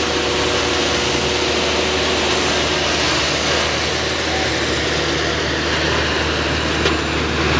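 Heavy diesel engine of a tipper truck running steadily, the truck stuck with its rear wheels sunk in loose road aggregate.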